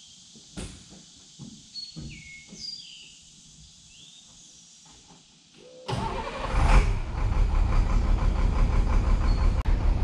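Bucket truck's engine starts about six seconds in and then runs steadily with a fast, even throb, powering the boom's hydraulics. Before it, a few bird chirps and light knocks.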